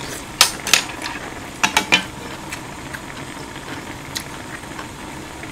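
Utensils clicking and knocking against a steel pot and the table as chopsticks are swapped for a wooden spatula: two single clicks, then a quick run of three a little over a second later, and a faint tap near the end. Under them runs the steady hiss of a pot of ramen boiling on a portable gas burner.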